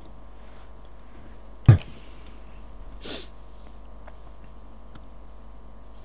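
A single sharp thump, then about a second and a half later a short sniff, over a steady low hum with faint steady tones.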